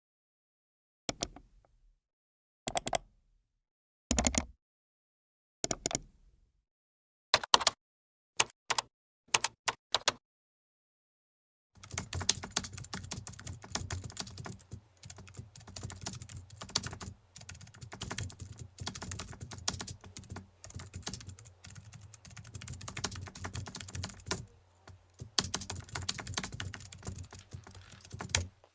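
A string of short, separate clicks, single or in quick pairs about every second and a half with dead silence between, then, from about twelve seconds in, rapid continuous typing on a computer keyboard.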